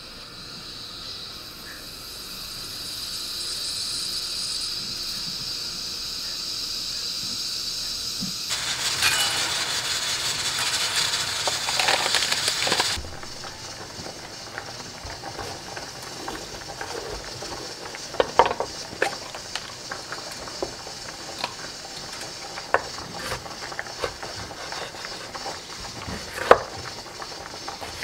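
Stovetop pressure cooker hissing steam from its valve, building steadily and then hissing harder before cutting off suddenly about 13 seconds in. After that, a Dorco kitchen knife slices a bell pepper on a wooden cutting board, with irregular sharp taps of the blade on the board.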